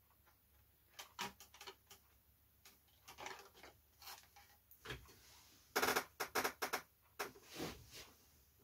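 Small clicks, taps and rustles of hands handling light balsa and foam model-aircraft parts on a workbench, with a quick run of several sharp clicks about six seconds in.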